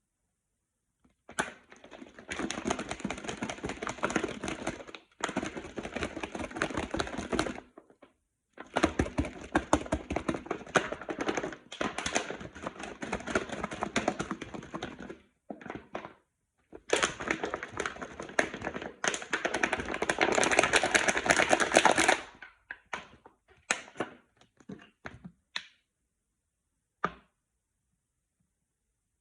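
Plastic bottle of glue, water, colouring and slime activator being shaken hard to mix the slime: three long bursts of fast rattling clatter with short pauses between, then a few scattered knocks.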